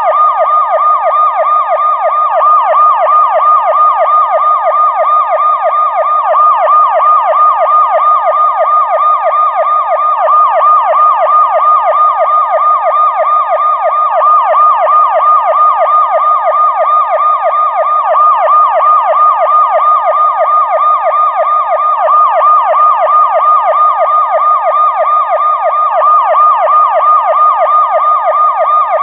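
Police car electronic siren in a rapid yelp, its pitch sweeping up and down several times a second, steady and unbroken.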